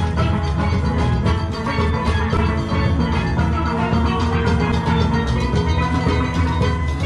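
Steel drum band playing live: many steel pans ringing out a tune in quick struck notes over a steady low beat.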